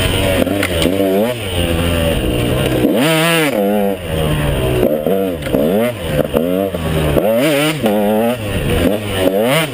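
KTM 150 XC two-stroke dirt bike engine revving up and falling back again and again as the throttle is opened and rolled off, its pitch rising and dropping in quick sweeps.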